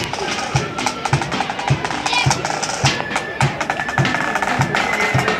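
Marching flute band playing. A bass drum beats steadily just under twice a second under rapid snare drum strokes, and a flute melody is held more clearly from about three seconds in.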